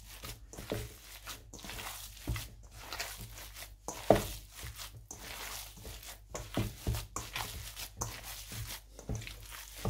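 Hands kneading and squeezing raw ground beef mixed with soaked bread and egg in a stainless steel bowl: irregular wet squishing strokes, one or two a second, the loudest about four seconds in.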